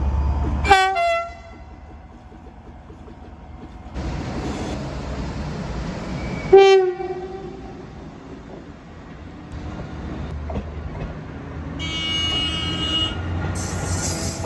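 Train horns in short separate blasts. A diesel locomotive's air horn (tyfon) sounds briefly about a second in, over a low engine rumble, and a DSB IC4 train's air horn gives another short loud blast about six and a half seconds in. Near the end, the IC4's higher-pitched electric horn sounds for about a second.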